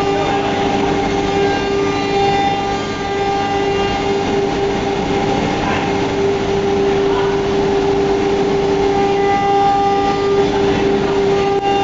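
Philicam ATC CNC router running, its spindle giving a steady high whine over the noise of the machine at work.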